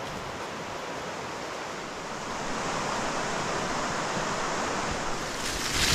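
Steady rushing of river water, growing louder about two and a half seconds in and louder again near the end.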